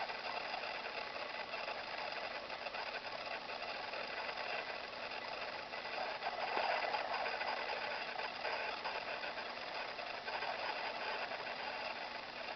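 A man snoring in his sleep: a rattling snore, with louder snores about six seconds in and again near ten seconds.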